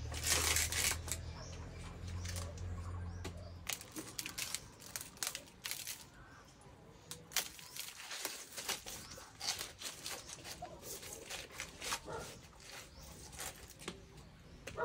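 Woven bamboo trays and bowls being set down and shifted on a wooden counter: a string of light knocks, clicks and rustles, with a low hum for the first few seconds that then stops.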